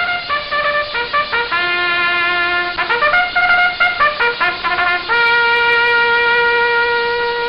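Trumpet playing a short tune of quick separate notes with a couple of longer ones, ending on one long held note that then cuts off.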